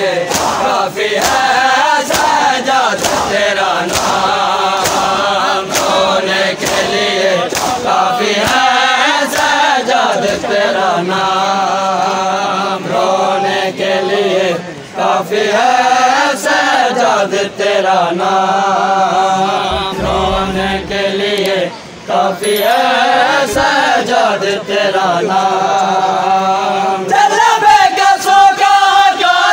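A crowd of men chanting a Shia noha (mourning lament) in unison, with rhythmic chest-beating slaps of matam about once a second.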